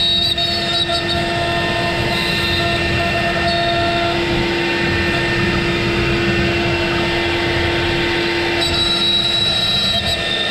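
Avid CNC router cutting a pocket into a wooden board with a 1/8-inch downcut spiral bit: a steady spindle whine over the noise of the cut.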